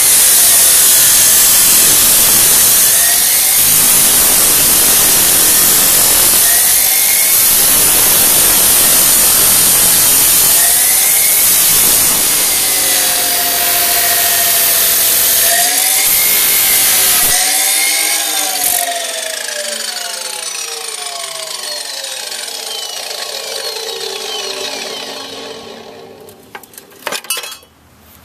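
Abrasive chop saw cutting through steel exhaust tubing: a loud, harsh grinding, its pitch wavering as the wheel is pressed through. About 17 seconds in the cut ends and the motor's whine falls steadily as the wheel spins down.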